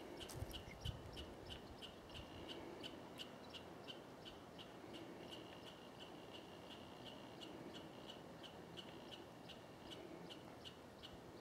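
A steady series of short, high chip calls, about three a second, faint against a quiet outdoor background.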